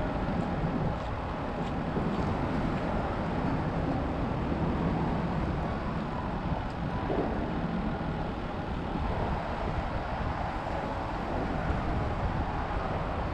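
Steady wind rumbling on the microphone outdoors by open water, an even noise with no distinct events.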